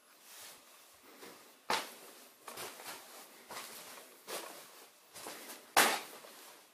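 Footsteps over a floor strewn with debris and paper, irregular scuffs about once a second, with a sharper knock about two seconds in and a louder one near the end.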